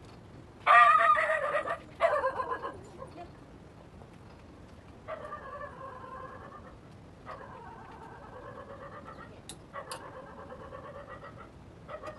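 A dog whining: two loud, high cries about a second in, then three or four long, quieter whines, each held for one to two seconds.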